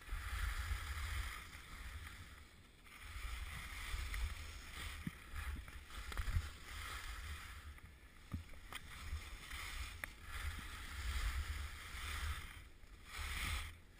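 Wind rumbling on the microphone of a skier going downhill, over the hiss of skis carving on packed snow, swelling and fading with each turn.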